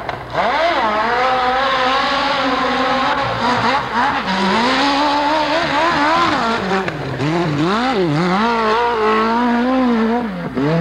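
Dirt bike engine revving hard under load as it climbs a steep dirt hill, its pitch swinging up and down again and again as the throttle is worked, with deep dips about four seconds in and again near eight seconds.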